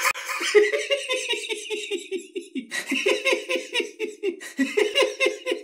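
A person laughing hard and without a break: a quick, even run of short "ha" sounds, about six a second, each dropping slightly in pitch.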